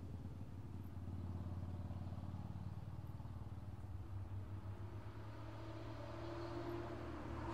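Car engine running steadily while cruising on a road, a low drone with faint road noise, growing slightly louder near the end.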